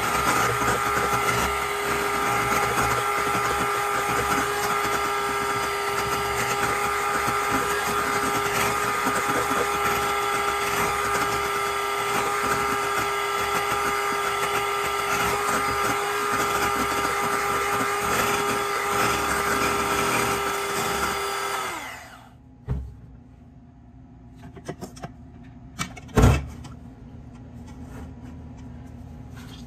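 Electric hand mixer running steadily with a whine as its beaters whip cream in a stainless steel bowl. The motor cuts off about three quarters of the way through. A knock and then one loud thump follow.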